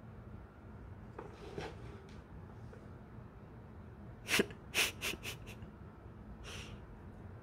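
A cat sneezing in a quick bout: five short, sharp sneezes close together, then one more about a second later.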